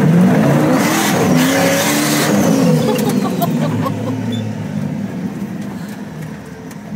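Turbocharged Hemi V8 in a Ford F100 pickup revving up and back down, with a high whistle that falls in pitch as the revs drop. The engine then runs on more quietly.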